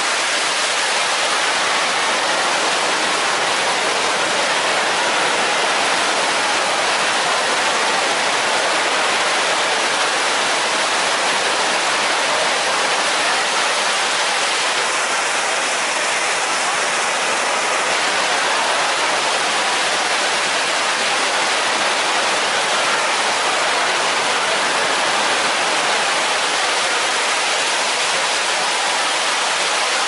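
The Rain Oculus whirlpool waterfall: a thick column of water draining from a swirling ceiling bowl and crashing into the pool below, a steady, unbroken rushing hiss.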